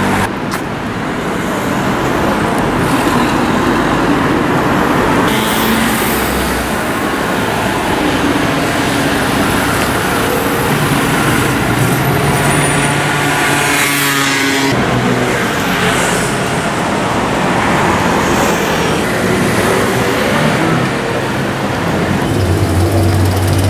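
Busy city street traffic: scooter, motorcycle and car engines running and passing at close range, with road noise. An engine note rises about two-thirds of the way through.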